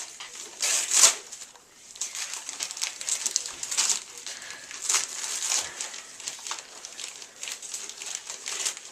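Gift wrapping paper crinkling and rustling in irregular bursts as a present is unwrapped.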